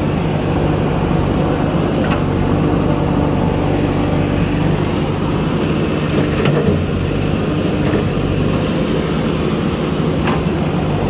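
Diesel engine of a JCB backhoe loader running steadily under load, with a few faint knocks.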